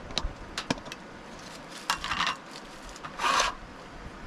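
Sharp clicks of a portable butane camp stove's knob and piezo igniter being turned to light the burner, several in the first two seconds. Near the end comes a brief rustle of a plastic bag.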